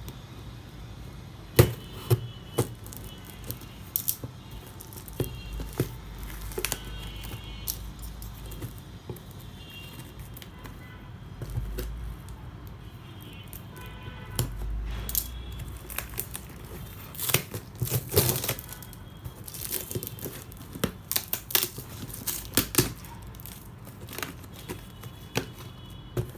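A delivery package being opened by hand: packaging tearing and crinkling in irregular bursts, with music underneath.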